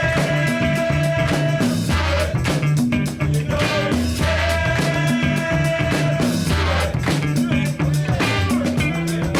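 Background music with a steady beat, bass and held guitar-like notes.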